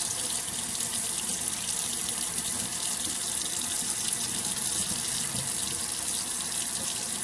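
Water tap running steadily into a sink as soursop leaves are rinsed under the stream.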